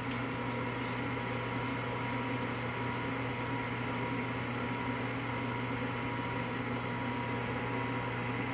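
Draft inducer fan of an Evcon/Coleman gas furnace running steadily with a low hum and a faint whine, during the start-up sequence before the igniter glows. A short click about a tenth of a second in.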